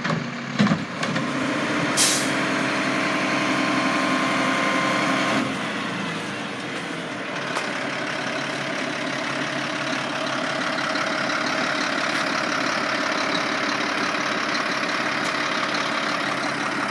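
Mack LR garbage truck with a Curotto Can automated arm. The engine runs raised for the hydraulics as the arm finishes emptying a cart, with a knock just after the start. A short air-brake hiss comes about two seconds in, and from about five and a half seconds in the engine settles to a steady idle.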